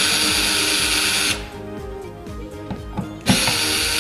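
Cordless drill-driver backing out the screws of a ceiling LED disk light. It runs in two steady bursts: one of about a second and a half at the start, and another starting about three seconds in.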